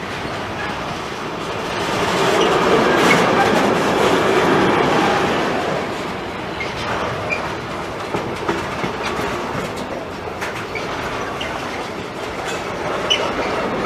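A train passing, its wheels clattering over the rail joints. It is loudest a few seconds in, then continues at a lower steady level.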